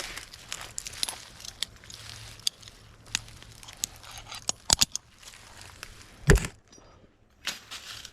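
Metal climbing gear jingling and clicking as a climber on spurs works up a pine trunk, with scattered sharp clicks and knocks, a quick cluster of loud clicks just before five seconds in, and one heavy thump a little after six seconds.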